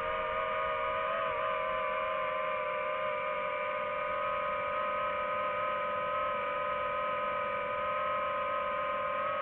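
DJI FPV drone's motors and propellers whining at a steady pitch, with a slight wobble in pitch about a second in.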